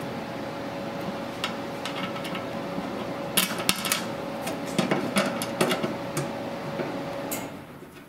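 Screwdriver and small screws clicking against the sheet-metal control plate of a propane furnace while the screws are picked up and driven back in: a string of irregular sharp metallic clicks. Under them runs a steady background hum that stops near the end.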